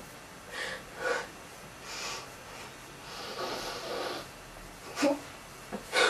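A person breathing and sniffing: several short sniffs or breaths, with one longer breath out about three seconds in.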